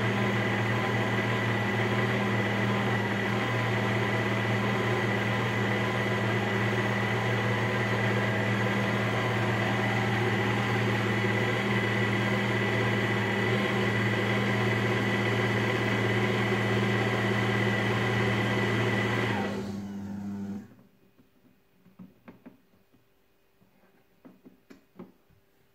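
Taurus Mycook 1.6 kitchen robot's mixing motor running steadily with a low hum and a high whine, then winding down and stopping about 20 seconds in. A few faint clicks from its control knobs follow.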